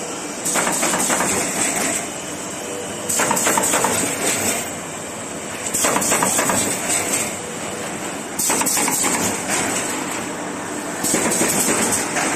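Automatic corrugated partition assembling machine running in a repeating cycle. About every two and a half seconds it makes a second-and-a-half burst of rapid mechanical clattering with a hiss, and between the bursts there is a steadier running noise.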